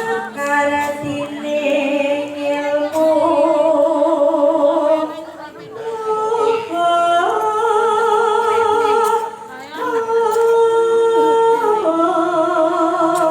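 A solo female voice sings a Javanese bawa (tembang macapat) with no accompaniment. She holds long notes with a wide, wavering vibrato in slow phrases, and the voice steps to a new pitch between them.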